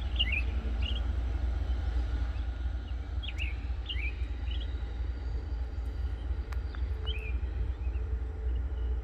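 A small bird chirping in three short runs of quick falling notes, over a steady low rumble.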